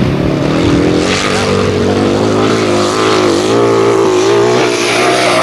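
Grasstrack racing sidecar outfits' engines running hard as they race past, several engines sounding at once with their pitch rising and falling as they rev through the bends.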